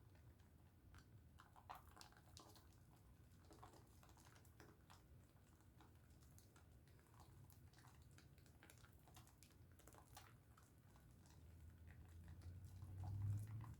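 Faint crackling and small wet clicks of a bar of Dove soap being lathered. A low rumble swells briefly near the end.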